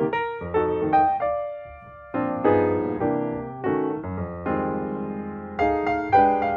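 Piano music: struck chords and melody notes, each fading after it is played, with a short lull about two seconds in.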